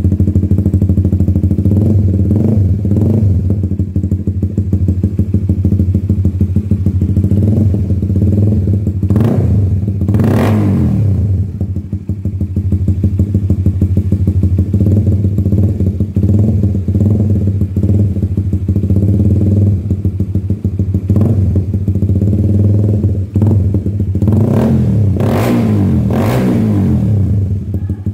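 Honda CBR150R's 150 cc single-cylinder engine running through an Austin Racing aftermarket exhaust, idling steadily and revved with the throttle: a big rev about ten seconds in, several shorter blips, and a few more revs near the end.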